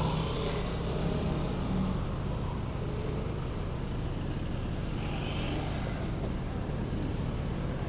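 Steady rumble of city road traffic, with short hissy sounds near the start and again about five seconds in.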